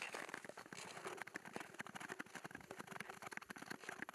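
Nordic tour skates gliding on natural lake ice, a quiet, dense and irregular crackle of blade scrapes and clicks.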